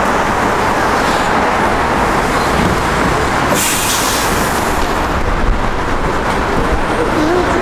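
City street traffic noise: vehicles running past in a steady wash of sound, with a short sharp hiss about three and a half seconds in that lasts about a second.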